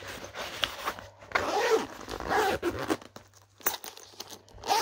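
Zip on a soft fabric clarinet case being pulled along, a scratchy run of zipper teeth for about three seconds, followed by a few light clicks of handling.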